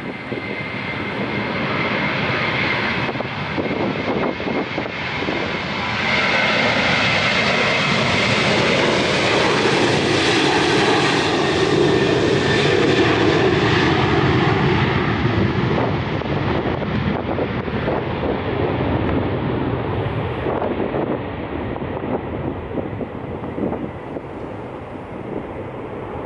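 Jet airliner's engines passing close by, swelling to a peak about halfway through and then fading away, with a steady high whine in the first few seconds.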